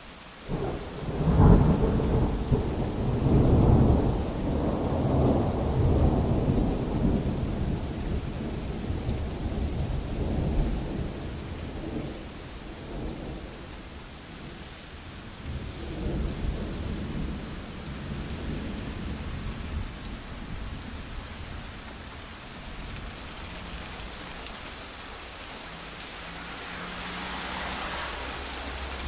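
Thunder: a loud peal about a second in that rumbles on for around ten seconds, then a smaller rumble, over steady rain on the ground. The rain grows louder near the end.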